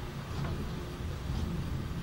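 Thunder rumbling low and continuously, swelling slightly, with faint ticks about once a second.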